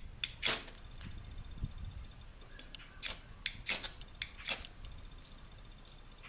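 A fire starter being struck to light a denatured-alcohol camp stove: a handful of short, sharp metallic scrapes spaced irregularly over a few seconds.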